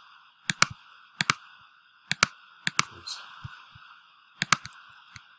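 Computer mouse clicking: about five sharp double clicks, each a press and release, spaced a second or so apart, over a faint steady hiss.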